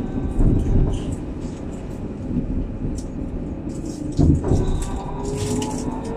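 Alstom Citadis 302 tram running along its track, heard from the driver's cab: a low rumble with scattered knocks from the wheels on the rails. About two-thirds of the way in, a traction-motor whine starts rising slowly in pitch as the tram gathers speed.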